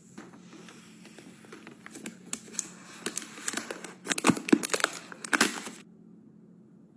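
Packaging being crinkled and torn open by hand, a run of crackles and sharp rustles that grows louder toward the end and then cuts off suddenly.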